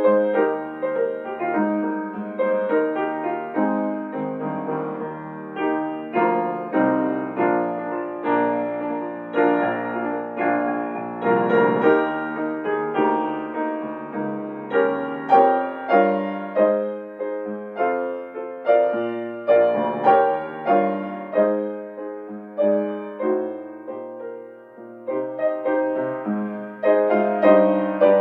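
Piano playing a calm instrumental piece, notes and chords struck and left to fade.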